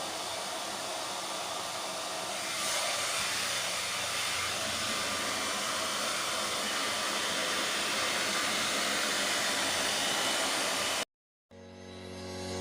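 Remington Curl & Straight hair dryer running with a steady rush of air, a little louder from about two and a half seconds in. It cuts off abruptly near the end, and soft piano music fades in.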